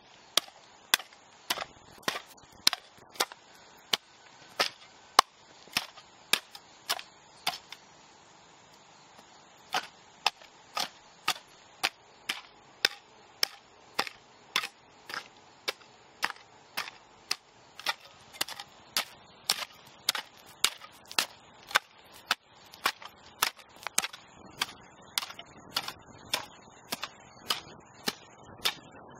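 Corrupted audio: a steady train of sharp digital clicks, about two a second, with a break of a second or two about eight seconds in, over a faint hiss.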